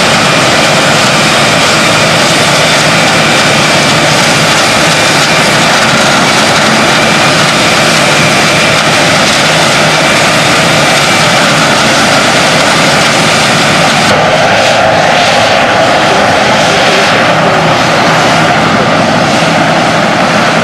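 Claas Lexion 480 combine harvester running steadily and loudly while cutting rice. The sound turns duller about fourteen seconds in.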